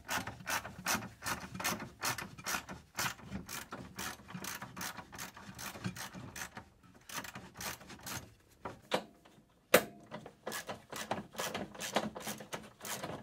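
Hand ratchet wrench with an 18 mm socket clicking as seat bolts are backed out, about three clicks a second. There are a couple of short pauses, and one sharper click comes about ten seconds in.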